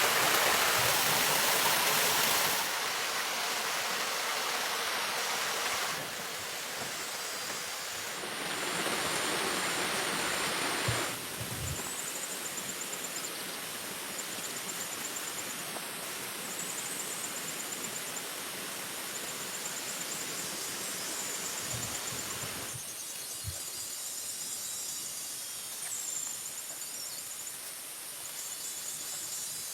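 Outdoor ambience: a steady rushing noise that changes abruptly in level several times, with faint high chirping repeated in the background from about a third of the way in.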